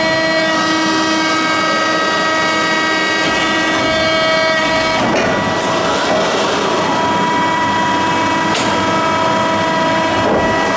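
Large CNC press brake running: a steady machine whine made of several held tones. The sound shifts about halfway through as the backgauge moves, and there is a sharp click near the end.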